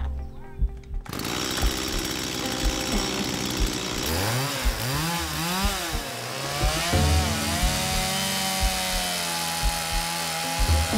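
A small engine revving up and down three times, then holding a steady high speed, with music underneath.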